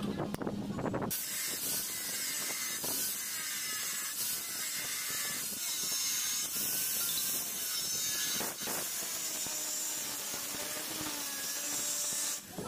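Angle grinder with a thin cut-off disc cutting into a steel file clamped in a vise: a steady, high grinding hiss as the disc bites the metal. The cut settles into this hiss about a second in.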